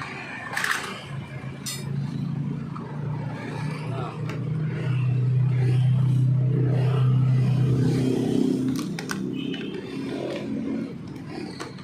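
Honda UMR 345 T brush cutter's small four-stroke engine catching and running unsteadily for several seconds, its pitch stepping up about eight seconds in before it fades. These are the first signs of life from an engine under repair that is not yet running properly, with the carburettor throttle still to be adjusted.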